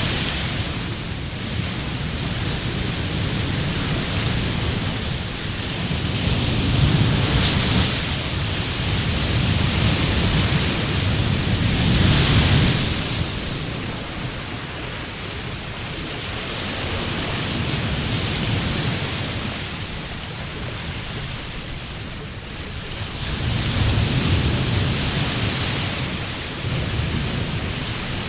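Sea waves breaking and washing up a beach, the surf swelling and fading every few seconds with the loudest surges about 7, 12 and 24 seconds in.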